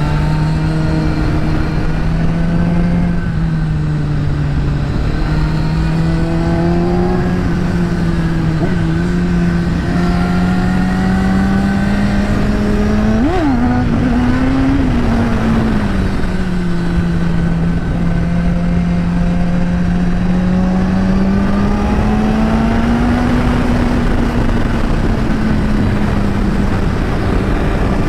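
Kawasaki Ninja ZX-10R's inline-four engine running through an Akrapovič carbon exhaust while riding at steady revs. Its note rises and falls gently, with a brief sharp rise in pitch about halfway, over a steady rush of wind and road noise.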